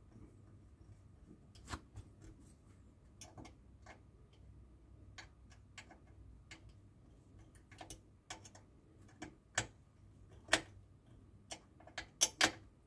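Small screwdriver driving a tiny screw into the plastic of a scale-model car door: scattered light clicks and ticks at an uneven pace, with a few louder clicks near the end.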